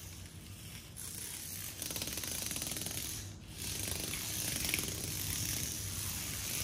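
Tiny 1:76-scale Turbo Racing C71 RC cars' electric motors and gears buzzing as the cars push against each other, dropping off briefly a little past three seconds in before picking up again.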